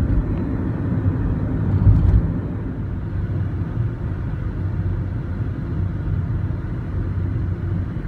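Inside a moving car: steady low rumble of engine and tyre noise at about 40 km/h, swelling briefly about two seconds in.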